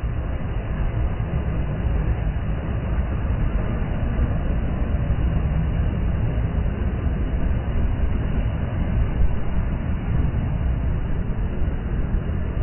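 Sea surf: small waves breaking and washing up a sandy shore, a steady rush with a strong low rumble.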